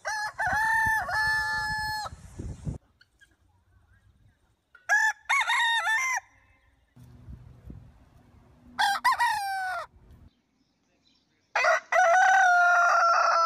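Roosters crowing: four separate cock-a-doodle-doo crows from different birds, a few seconds apart, the last one long and drawn out with its pitch slowly falling.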